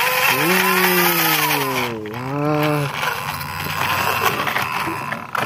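A man's voice humming a drawn-out engine-like noise in two long notes while a plastic toy jeep is pushed by hand, its wheels rolling and scraping on rough concrete. After about three seconds the humming stops and only the rolling scrape goes on.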